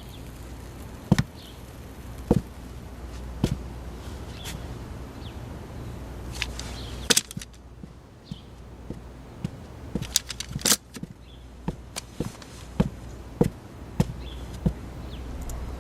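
A series of sharp knocks, about one a second at first, then more irregular and bunched together, over a low steady hum.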